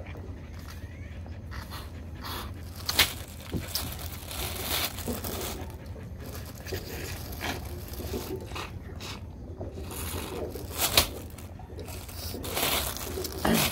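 Plastic bags being handled, crinkling and rustling, with a few sharp clicks and knocks, over a steady low hum.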